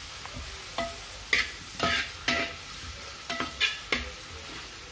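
Onion, garlic and ginger sizzling in hot oil while a spatula stirs and scrapes them around the pan. There are about seven short scraping strokes over a steady sizzle, at the stage of sautéing the masala until it browns.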